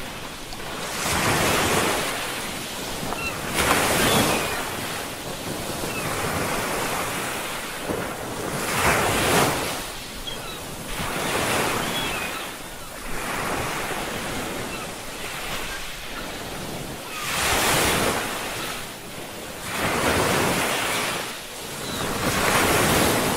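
Ocean surf: waves breaking and washing back in swells every few seconds, a loud wash of noise with no steady tone.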